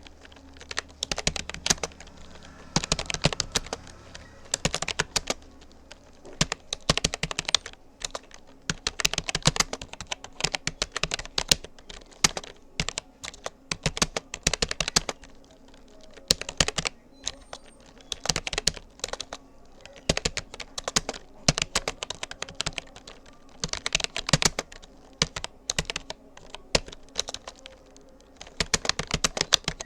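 Rapoo computer keyboard being typed on, fast runs of key clicks in bursts with short pauses between words and phrases. A faint low hum sits under the first few seconds.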